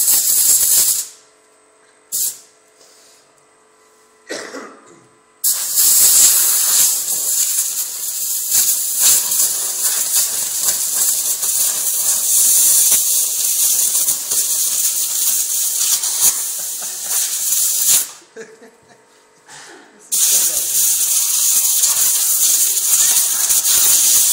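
Compressed-air blow gun hissing in blasts. The first stops after about a second; after a pause of several seconds a long blast of about twelve seconds follows, then after a two-second pause another starts.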